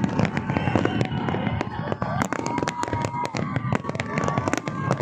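Large aerial fireworks barrage: rapid, overlapping bangs and crackles of many shells bursting at once, over a continuous low rumble.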